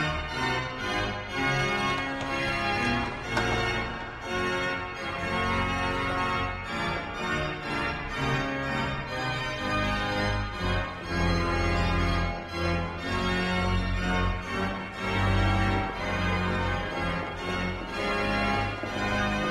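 Church organ playing slow, sustained chords that shift every second or so.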